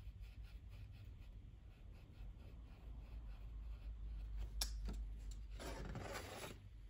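Faint scratchy rubbing of a watercolour brush working on rough 140 lb cold-press watercolour paper, with a sharp click about two-thirds through and a louder scrubbing rustle near the end.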